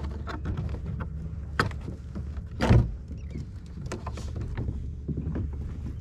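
Plastic clicks and knocks of a sit-on-top kayak's bow hatch being unlatched and swung open, with one louder knock near the middle, over a steady low rumble.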